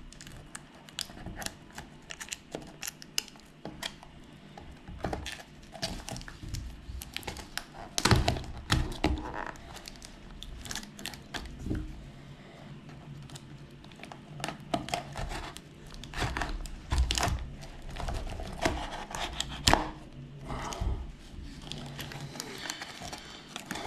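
A small product box being cut and pried open by hand with a knife: crinkling and tearing of packaging with scattered knocks and clicks of handling.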